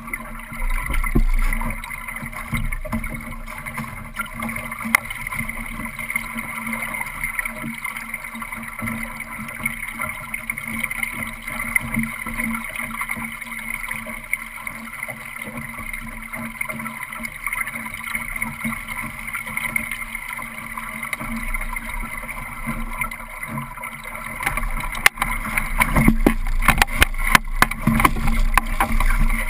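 Water rushing and slapping along a Solo sailing dinghy's hull, with wind on the microphone. Near the end it grows louder, with a series of sharp knocks and rattles as the boat tacks and the helmsman crosses the cockpit.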